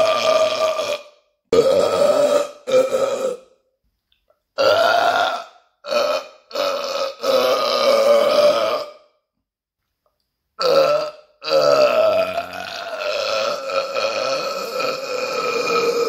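A man burping deliberately, a string of loud, deep burps separated by short pauses: several short ones, then a long drawn-out burp lasting about five seconds near the end.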